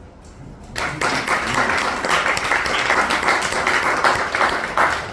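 An audience applauding, starting about a second in and going on steadily to the end.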